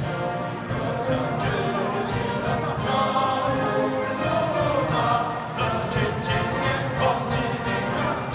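A live brass band playing, with a large group of voices singing along in unison.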